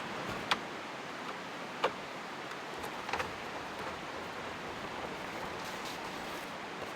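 A steady hiss with a few sharp clicks: one about half a second in, one just under two seconds in, and a quick double click about three seconds in.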